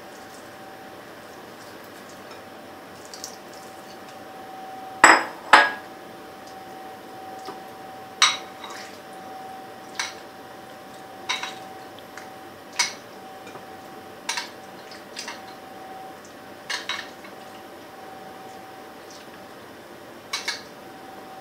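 A metal spoon clinks against glass bowls as jelly cubes are scooped out and laid on the dish. There are two loud clinks about five seconds in, then single lighter clinks every second or two. A faint steady hum runs underneath.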